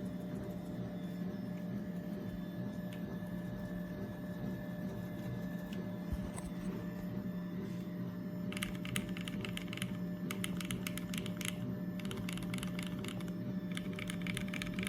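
Typing on a magnetic-levitation switch keyboard: rapid runs of key clicks in several bursts starting a little past halfway, under a steady low electrical hum that runs throughout, with only a couple of isolated clicks before the typing begins.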